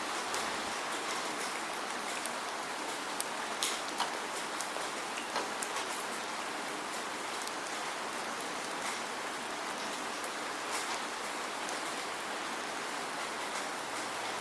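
Steady rain falling, an even hiss with scattered sharp drip clicks, more of them in the first half.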